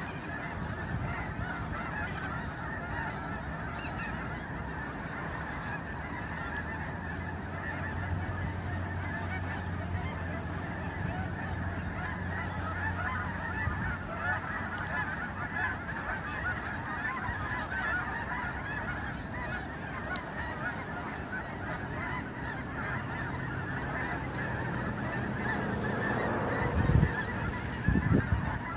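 A large flock of geese honking continuously, many calls overlapping into a steady clamour. Two loud thumps near the end.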